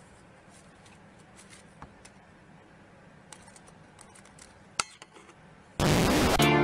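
Low background with scattered faint clicks and one sharper click. Near the end, a sudden loud burst of TV-static hiss with music coming in, a title bumper.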